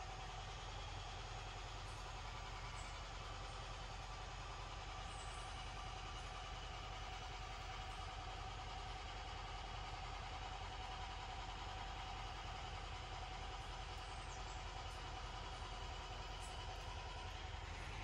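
Steady engine hum running evenly at idle, with no distinct knocks or changes.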